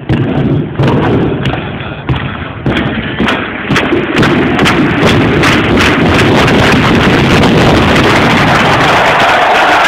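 Stadium pyrotechnics going off: a quick, irregular run of sharp bangs and pops over loud stadium noise, the bangs crowding together into a continuous loud din about halfway through.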